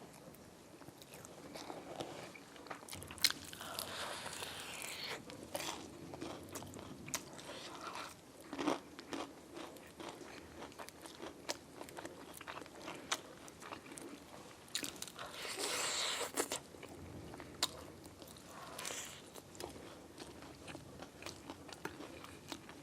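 Close-up mukbang eating sounds: biting and chewing food with small crunches and many short mouth clicks, and two longer noisy stretches about four and sixteen seconds in.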